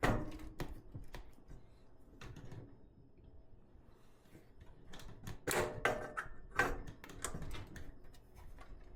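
Irregular clicks and light knocks of an air hose fitting being handled and screwed back onto a PCP air compressor, with a quieter pause in the middle and a busier run of knocks later on.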